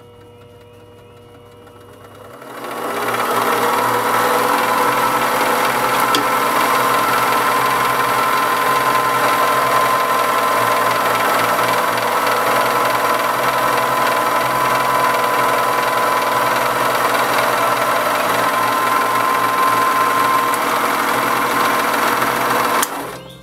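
Variable-speed mini metal lathe starting about two and a half seconds in and running steadily with its power feed engaged: the motor and gear train run with a steady high tone, then stop suddenly near the end.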